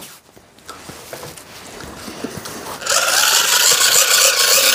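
Small electric fan switched on about three seconds in, running with a steady whir of air and a motor whine.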